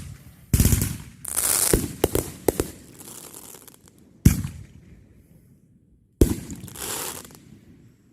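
Fireworks going off: a cluster of sharp bangs in the first two and a half seconds, then single bangs about four and six seconds in, each trailed by crackling hiss.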